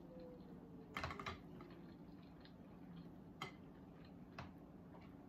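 Faint eating sounds of someone eating by hand: a few soft clicks and smacks from chewing and handling the food, a small cluster about a second in and single clicks later, over a low steady hum.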